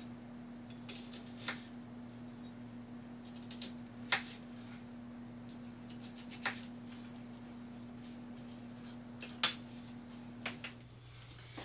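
Chef's knife slicing through an onion and knocking on a plastic cutting board: a handful of separate sharp taps a few seconds apart, the loudest near the end. A faint steady hum runs underneath.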